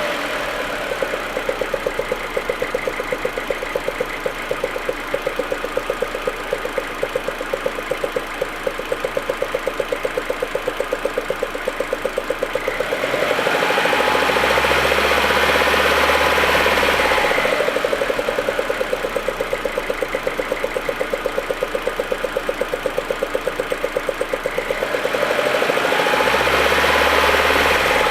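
Audi A4 1.8T's turbocharged four-cylinder engine idling roughly with a regular pulsing beat. It swells louder twice along the way. This is the rough idle and misfiring that the owner is trying to trace.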